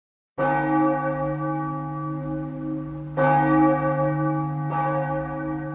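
Church bell tolling, struck three times, each stroke ringing on into the next.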